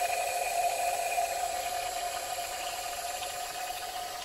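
Nitrous oxide propellant hissing out of a Reddi-wip whipped cream can's nozzle held open as the can is drained, with runny cream dribbling out. The steady hiss slowly gets quieter as the can empties.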